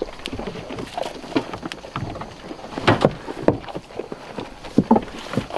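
Goats feeding at a wooden feeder, rustling and pulling hay and pellets, with irregular crunches and knocks against the boards.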